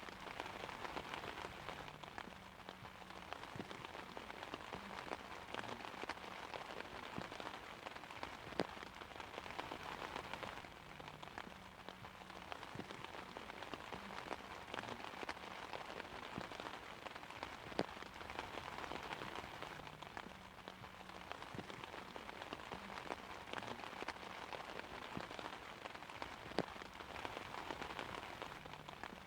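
Steady rain falling on an umbrella's fabric canopy, a dense patter with a few louder single drops.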